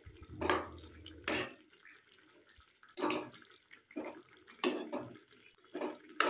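Metal ladle stirring juicy chopped tomatoes and peas in a metal kadhai on a gas stove: a wet, scraping stroke every second or so as the spoon drags through the food and against the pan.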